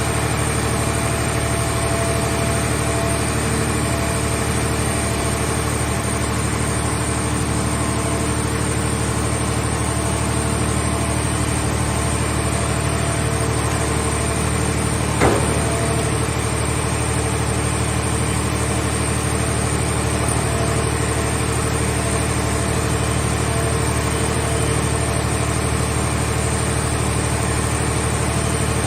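A car-scrap baling machine's engine running steadily at an even speed, with one sharp knock about halfway through.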